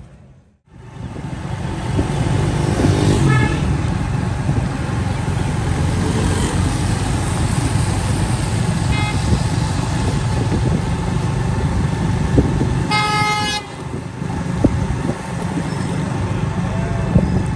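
Street traffic on a wet road: a steady rumble of engines and tyre hiss. Short horn toots come about 3 and 9 seconds in, and a louder car horn blast lasting under a second comes about 13 seconds in.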